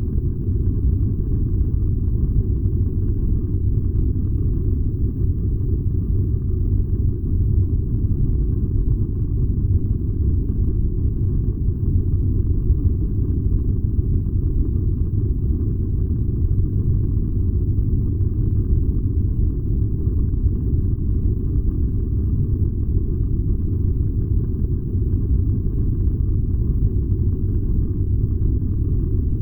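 A furnace running with a steady, unchanging low rumble.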